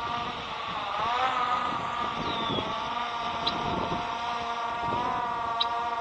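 DJI Air 2S quadcopter's motors and propellers whining in several steady tones, the pitch bending up and back about a second in as the motor speed changes. Two short high beeps sound about two seconds apart.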